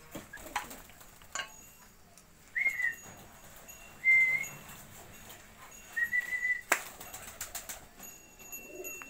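A person whistling three short, steady notes, the sort of whistle a pigeon keeper uses to call his birds; the middle note is the loudest and the last is the longest. Sharp knocks and clatter come in between, with a burst of them right after the last whistle.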